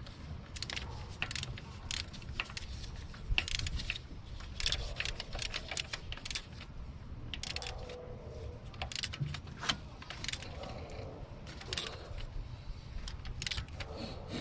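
Torque wrench ratcheting in short, irregular runs of clicks as it tightens the VVT solenoid bolts to 5 ft-lb.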